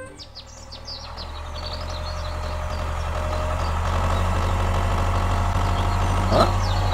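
A DIY mini tractor's small engine running steadily, growing louder over the first few seconds and then holding. Birds chirp near the start.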